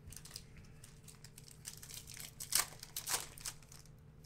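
Foil wrapper of a basketball trading-card pack crinkling and tearing open as it is handled, in irregular crackles that grow louder about two to three seconds in.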